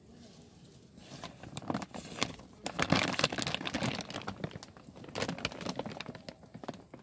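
Tent fabric rustling and crinkling as it is handled, a dense run of crackles starting about a second in and loudest midway.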